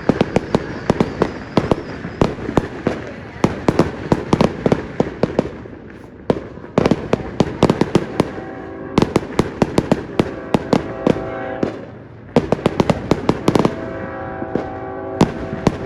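Fireworks and firecrackers going off in rapid strings of sharp cracks, many a second, easing briefly about six and twelve seconds in. Twice a steady tone with several pitches sounds over the crackling for a few seconds.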